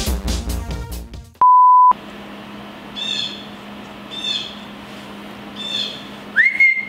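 Electronic outro music ending about a second in, then a loud half-second 1 kHz beep tone. After it comes a steady low hum with short high chirps about every second and a half, and a rising whistle near the end.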